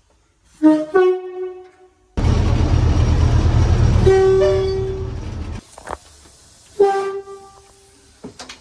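Train horn sounding in several short blasts from inside the cab: two quick toots near the start, another about four seconds in, and one more near the end. A loud rumbling noise starts abruptly about two seconds in and fades away after about three seconds.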